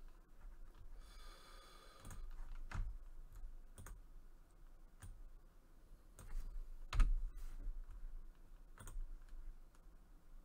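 Scattered clicks of a computer mouse and keyboard, one every second or so, with a heavier knock on the desk about seven seconds in.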